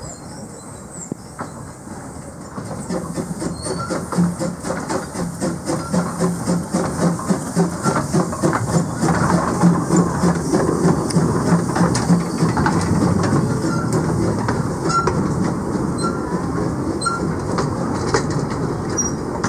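1903 Hunslet narrow-gauge steam locomotive running past with a rhythmic beat that grows louder as it nears, then its carriages rolling by with wheels clicking over the rail joints.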